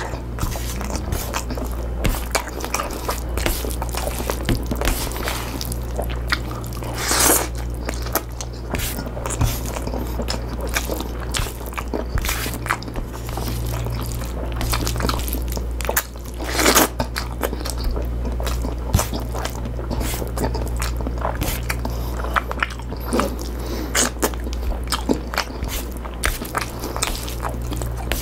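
Close-miked chewing and biting of pinakbet, wet mouth clicks and soft crunches of the cooked vegetables, over a steady low hum.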